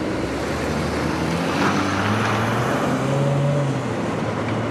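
Chevrolet Silverado pickup's engine running as the truck pulls slowly forward, its low note growing stronger in the middle, over a steady background hiss.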